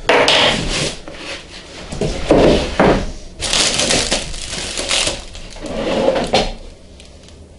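Cardboard shipping box being opened: flaps pulled open and plastic packing wrap rustling and crinkling, in several loud bursts that stop about two-thirds of the way through.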